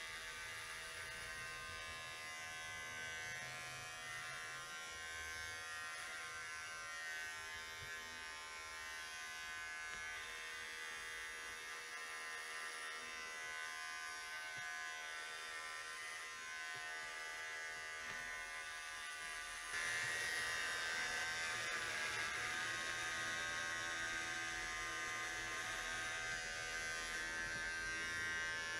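Corded electric hair clippers running steadily as they shave hair close to the scalp, a constant even-pitched tone that gets somewhat louder about two-thirds of the way through.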